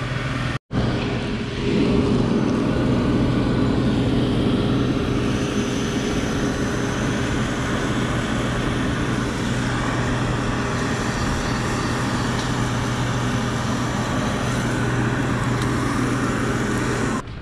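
Steady hiss of a fire hose jet spraying water, over the steady drone of a fire engine's motor driving the pump. The sound drops out for a moment about half a second in.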